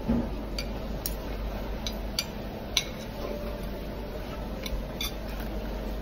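Metal fork and spoon clinking and tapping against ceramic plates while scooping food, about seven sharp clinks scattered through, the loudest near three seconds in, over a steady low hum.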